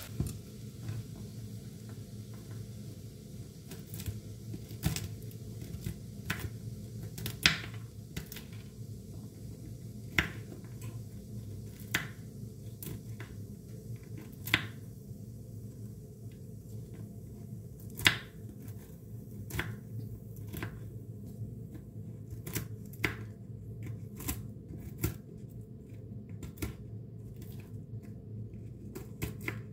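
Kitchen knife chopping walnuts on a wooden cutting board: irregular sharp knocks of the blade on the board, a few seconds apart at first and coming much faster in the last third, over a steady low background hum.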